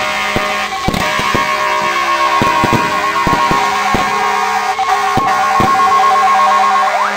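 Fire engine sirens sounding loud, steady, pulsing tones, with sharp bangs and crackles of firecrackers and firework fountains going off many times over them.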